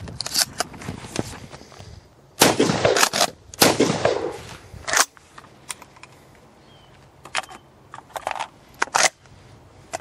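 Shotgun firing 3.5-inch lead Gamebore Mammoth Magnum cartridges: two loud shots with a ringing tail, a little over two seconds in and again about a second later, then a sharp crack near the middle. Small metallic clicks of the gun being loaded and handled come before and after.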